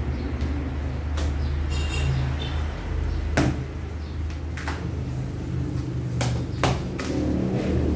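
Cardboard box flaps and packing being pulled open and handled, with several sharp knocks and thumps, the loudest about three and a half seconds in, over a steady low hum.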